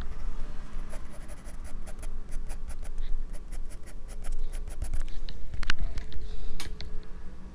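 Graphite pencil scratching on drawing paper in quick, short, repeated strokes, several a second, as shading is sketched in, with a few firmer single strokes near the end.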